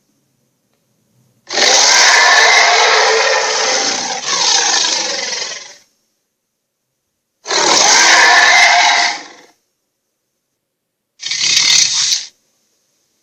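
Three dragon roar sound effects separated by dead silence: a long, rough roar of about four seconds that swells again near its end, then a two-second roar, then a short one.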